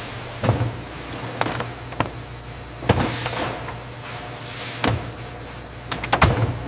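Factory machinery: a steady low hum with irregular mechanical clicks and clunks, the loudest cluster near the end, and a short hiss about four and a half seconds in.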